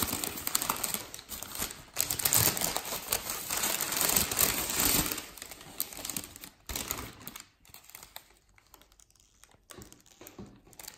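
Pastry packaging being handled and opened, crackling and crinkling busily for the first six seconds or so, then quieter scattered rustles and clicks.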